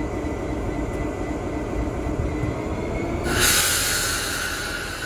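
Class 59 diesel locomotive's EMD 645 two-stroke V16 engine running steadily while standing. About three seconds in, a loud steady hiss starts suddenly and continues.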